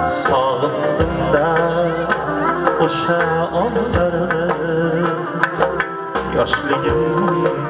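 Live Uzbek band music: a flute and keyboard melody with wavering ornaments over a quick percussion beat.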